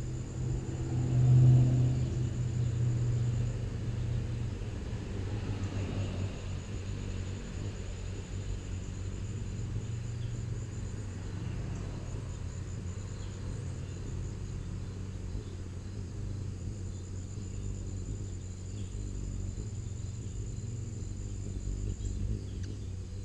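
Steady low outdoor rumble, with a louder low hum that swells and fades about a second in, and a faint high thin tone that comes and goes.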